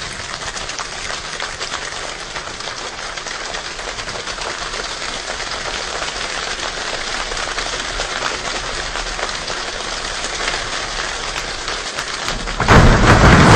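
Hands imitating rain: a dense patter of small claps and snaps that slowly grows louder, then jumps suddenly to a much louder, fuller downpour near the end.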